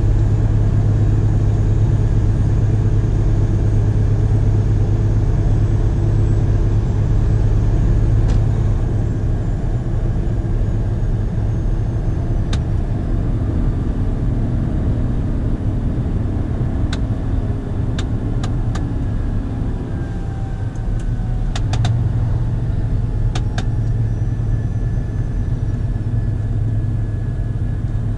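A Scania truck's diesel engine drones steadily, heard from inside the cab at highway speed. The drone drops a little about eight seconds in and picks up again a little past twenty seconds. A few scattered sharp clicks come through in the second half.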